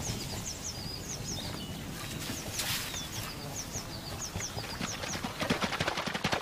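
Small birds chirping in short, repeated high notes. Near the end a horse gallops through shallow water: quick hoof strikes and splashing, getting louder.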